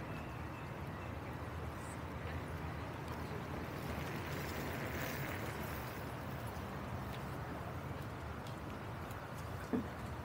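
Steady outdoor city ambience: an even low rumble and hiss, with a few faint ticks and one sharp knock near the end.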